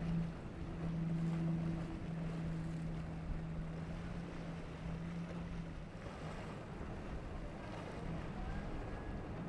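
Outboard engines of a boat running at speed, a steady drone that fades about six seconds in, over a continuous rush of water and wind.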